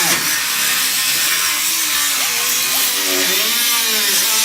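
A power tool running steadily, giving a loud, even hiss, with faint voices underneath.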